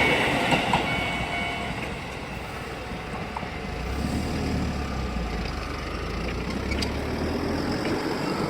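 Low engine rumble of a passing vehicle over outdoor background noise. It swells about halfway through and eases off near the end.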